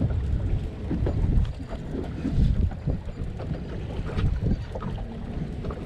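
Wind buffeting the microphone, a gusting rumble, over the wash of water along the side of a small boat.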